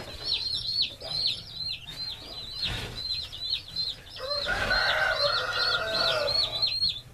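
Newly hatched Cornish Rock meat chicks peeping without pause: several short, high chirps a second, each falling in pitch. From about four seconds in, a lower, drawn-out call lasting about two seconds sounds over the peeping.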